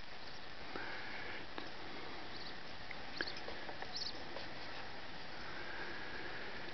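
Open hayfield ambience: a steady faint hiss with scattered light ticks and a few short, faint high chirps about halfway through.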